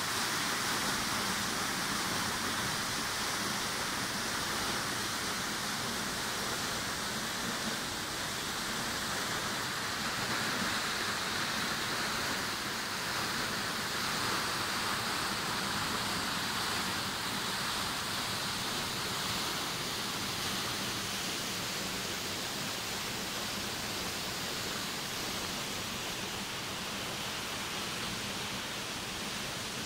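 A tall waterfall pouring down a steep rock face: a steady, even rush of falling water.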